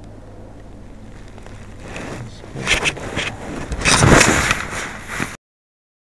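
Handling noise from a phone being picked up and moved: scuffing and rubbing against its microphone that starts about two seconds in, grows louder, then cuts off abruptly as the recording stops.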